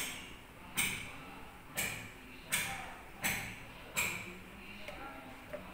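A series of sharp clicks or knocks, each ringing out briefly, repeating about once a second and stopping about four seconds in.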